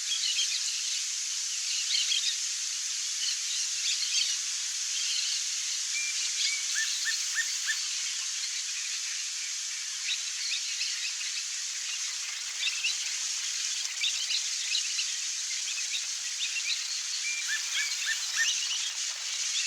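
Pale-crested woodpecker calling: two short runs of four quick notes, about seven seconds in and again near the end, among scattered bird chirps over a steady high hiss.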